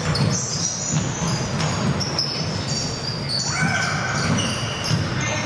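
Basketballs bouncing on a hardwood gym floor in quick irregular thumps, with short high sneaker squeaks, echoing in a large gymnasium.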